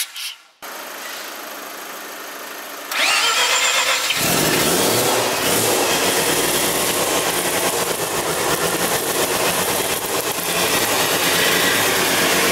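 Mazda RX-7 FC's 13B rotary engine turning over on the starter, then catching about three to four seconds in and running steadily, a little louder near the end.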